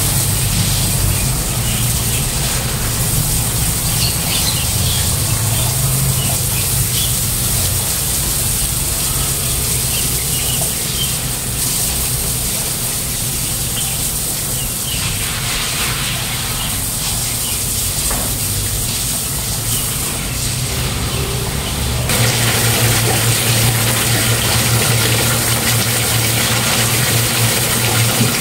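Garden hose spraying water onto a tiled floor while a broom scrubs it, over a steady low hum. The sound changes about two-thirds of the way through, with the hum growing louder.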